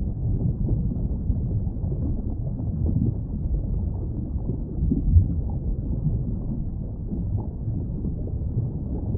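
Steady low rumbling background noise, like wind buffeting the microphone or distant surf, with one short thump about five seconds in.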